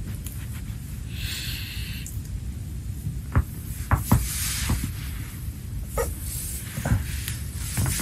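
Spinal joints popping under a person's weight on the back: about six or seven sharp cracks from about three seconds in, the loudest near four seconds in, over a low steady rumble. A short hiss comes about a second in.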